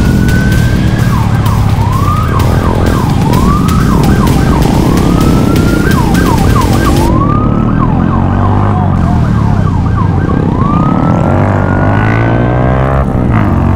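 Police car siren starting as a slow rising wail, switching to fast repeated up-and-down yelps, and returning to a slow wail near the end. Beneath it runs the steady drone of motorcycle engines.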